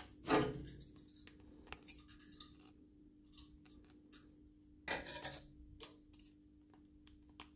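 Small clicks and scrapes of hands working construction wire and a plastic snowboard binding strap, with two somewhat louder handling noises, about half a second and about five seconds in. A faint steady hum sits underneath.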